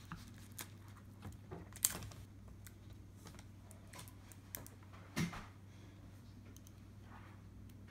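Scattered light clicks and taps of hands handling a laptop LCD panel and the plastic lid around it, with a sharper click about two seconds in and a soft knock about five seconds in, over a faint steady low hum.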